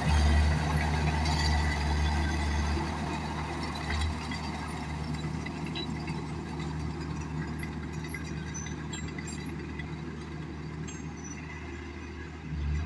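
Diesel engine of heavy earthmoving equipment running steadily with a deep hum, louder for the first few seconds and then easing off a little.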